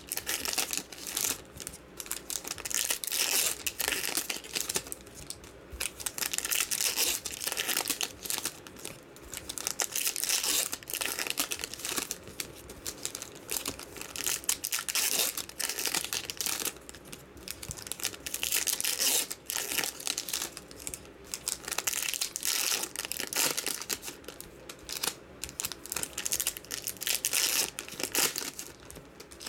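Foil trading-card pack wrappers crinkling and tearing as packs are handled and opened one after another, an irregular run of rustling bursts.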